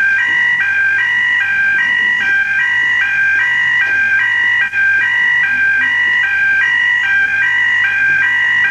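Electronic two-tone alarm sounding continuously, alternating rapidly between a high and a low note: a police station emergency alarm raised when a prisoner is found not breathing in his cell.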